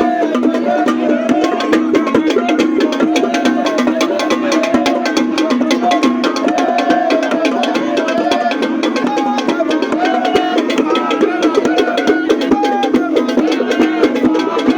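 Music with fast, busy percussion of sharp wood-block-like clicks and drums under a melodic line.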